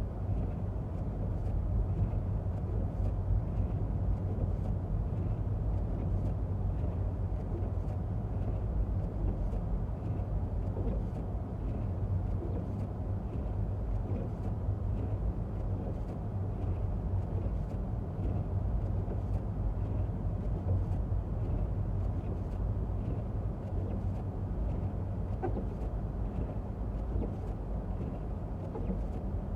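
Steady low rumble of road and tyre noise heard inside the cabin of a Toyota Prius driving on a snow-covered road.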